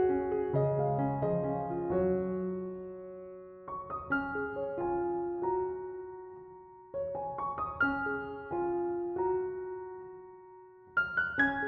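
Background piano music: notes struck in short phrases that die away, a new phrase starting about every three to four seconds.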